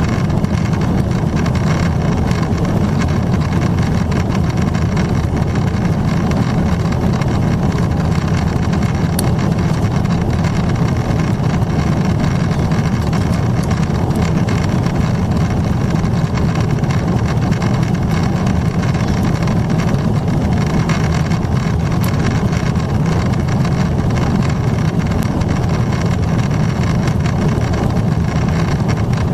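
Steady cabin drone of a Boeing 777-300ER in a gentle climb at cruise-level altitude, heard from a window seat over the wing. It blends the GE90 engines' low rumble with rushing airflow, steady throughout.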